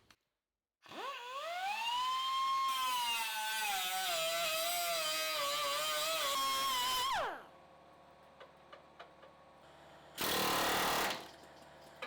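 Electric power tool, likely an angle grinder, spinning up to a high whine and working metal. Its pitch wavers as it is loaded, then it is switched off and winds down. A short burst of hiss follows near the end.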